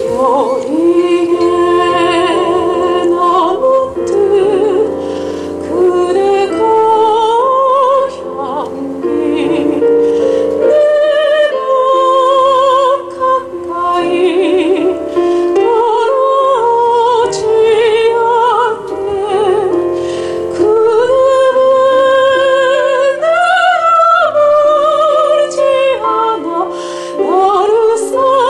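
A soprano singing in a classical, operatic style with a wide vibrato, accompanied by piano.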